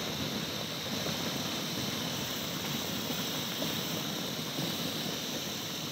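Landslide of rock and debris pouring down a steep cliff face, heard as a steady rushing rumble.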